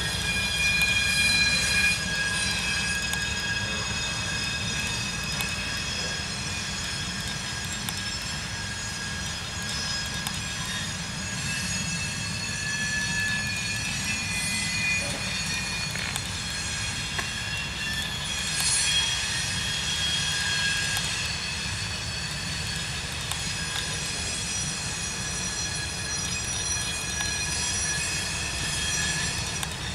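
Loaded coal hopper cars rolling past: a steady low rumble of wheels on the rails, with several high-pitched wheel squeals coming and going over it.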